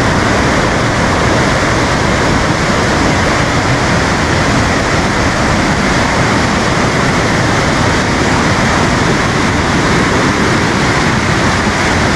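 A jungle river in sudden flash flood, fast brown floodwater rushing and churning over boulders in a loud, unbroken rush of water.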